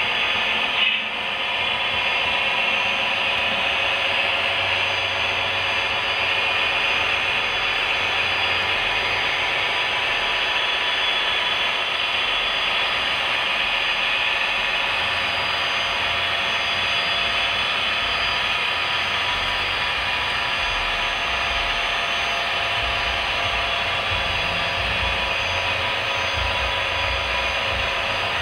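Model railroad freight train rolling past on the track: a steady whirring rumble of wheels on the rails, with one short click about a second in.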